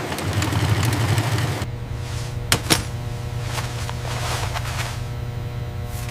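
Factory machinery running with a steady hum. A rushing noise in the first second and a half, then two sharp clicks about two and a half seconds in.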